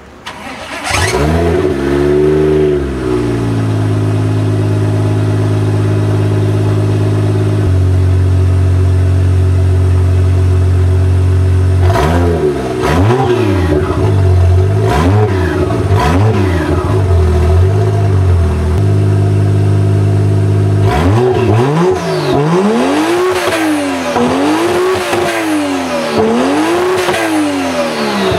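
Toyota 1JZ-GTE twin-turbo inline-six cold-starting: it catches about a second in, flares up and settles to a steady idle. It is then free-revved in a few quick blips in the middle, and again in a run of higher, repeated revs near the end.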